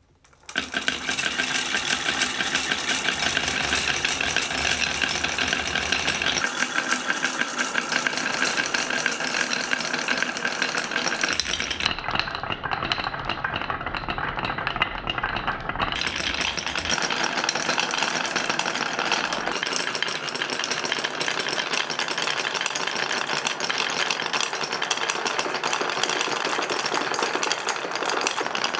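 Marbles rolling and clattering down HABA wooden marble-run slopes, a dense continuous rattle of rapid clicks. It starts suddenly about half a second in, and its tone shifts a few times along the way.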